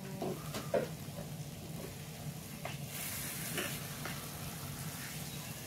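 Meat sizzling on an electric Korean barbecue grill plate, with a few light clicks of utensils against the grill and dishes. The hiss grows louder about three seconds in.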